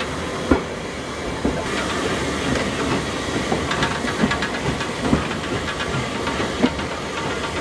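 Steam locomotive running, heard from the footplate: a steady hiss of steam and the rattle of the moving engine, with a few sharp clanks.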